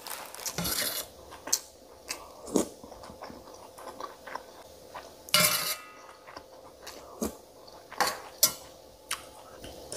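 A person chewing a mouthful of food, with a metal spoon clinking and scraping now and then on a stainless steel plate. There is a longer, louder scrape about halfway through.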